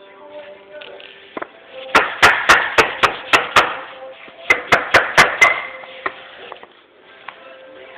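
Tapping block being struck to knock a laminate floor plank into its locking joint: two quick runs of sharp taps, about seven and then about five, a second apart. Quiet background music plays underneath.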